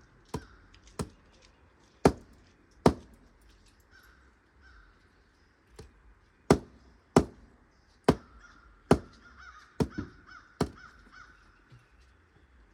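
A hammer striking a nail into pine lumber, about eleven sharp blows in uneven groups with short pauses between them. Faint wavering calls sound in the background.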